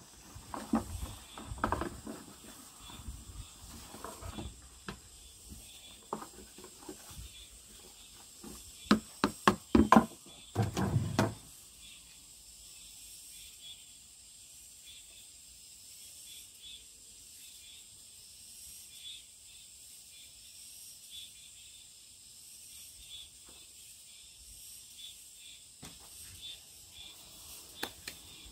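Hands crumbling and rubbing half-dried potato starch lumps on a paper sheet: scattered rustling and small clicks, with a cluster of loud knocks about nine to eleven seconds in. The rest is soft, under a faint steady high hiss.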